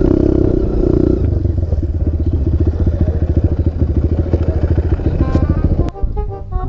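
Single-cylinder trail motorcycle engine running at a low, even, fast beat. The engine sound cuts off abruptly about six seconds in, and music follows.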